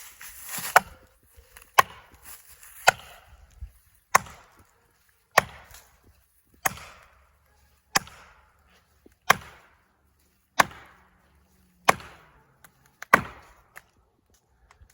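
A felling wedge being driven into the back cut of a large oak with a hammer: about eleven sharp strikes, steadily spaced a little over a second apart, to lift and tip the tree over its hinge.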